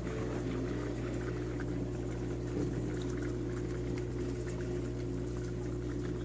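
Aquarium filter running: a steady hum with water bubbling and trickling.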